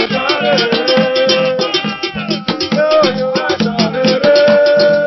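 Music with a steady percussion beat and a melody line that holds and slides between notes.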